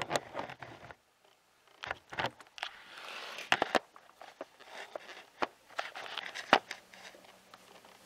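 Irregular clicks, knocks and rustling of things being handled, with a short quiet gap about a second in.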